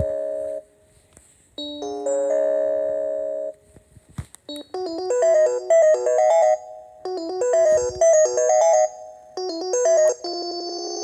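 Panasonic KX-TPA60 cordless handset playing ringtone previews through its small speaker: a chiming chord pattern sounds twice, a couple of clicks come about four seconds in, then a faster electronic melody plays in repeated phrases, and near the end a different, steadier trilling ring begins.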